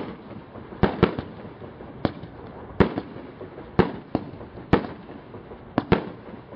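A 200-shot consumer firework battery firing: sharp bangs come irregularly, roughly one a second, some in quick pairs.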